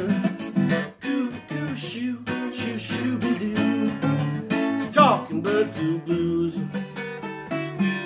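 Takamine acoustic guitar strummed in a blues rhythm, with a harmonica played over it from a neck rack, its notes bending, and a quick rising slide about five seconds in.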